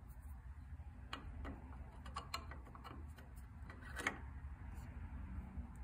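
Faint, irregular metal clicks and taps of a wrench working the bolt on a brake pedal push rod's clevis, over a steady low hum.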